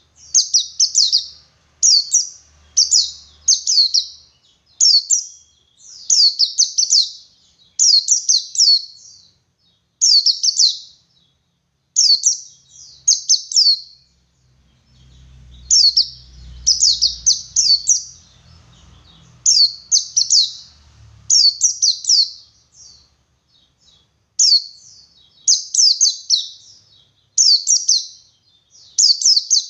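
White-eye (pleci) singing its 'ngalas' song: quick clusters of high, rapidly falling twittering notes, about one cluster a second, with a short pause about halfway through.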